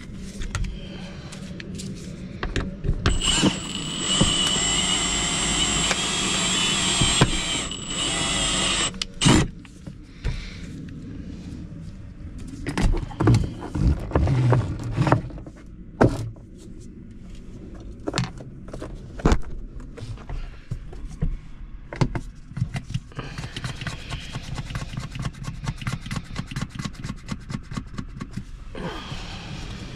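A small electric power tool runs steadily with a high whine for about six seconds, then stops. Scattered knocks and clicks follow, then a softer hiss with rapid light ticking.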